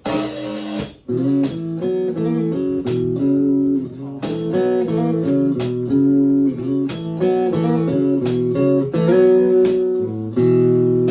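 Band launching into a song's instrumental intro: a crash at the start, then guitar chords held over drums, with cymbal hits about every second and a half.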